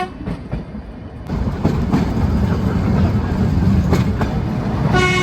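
Nilgiri Mountain Railway train running: the rumble and clatter of the carriages on the rails, growing louder about a second in. The X-class steam locomotive gives a short whistle toot at the very start and a longer one near the end.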